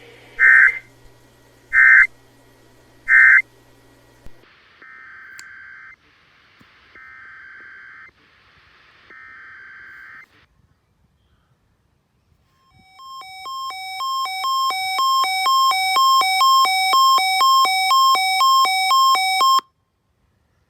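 Emergency Alert System data bursts on NOAA Weather Radio: three short, loud screeching bursts, then after a switch of station three longer, fainter bursts about a second each. After a short gap, a weather radio's alert sounds, a pulsing multi-tone beep about twice a second that swells in level and cuts off suddenly.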